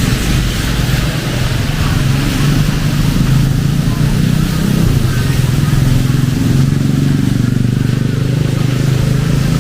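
Heavy rain pouring, with a motor vehicle engine running close by as a strong steady low hum under the even hiss of the rain.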